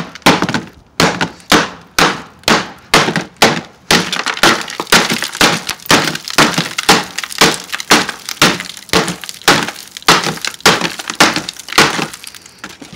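An iPhone 5c being smashed in a cardboard box by repeated hard blows from a hand tool, about two a second, its glass screen cracking and shattering under the strikes.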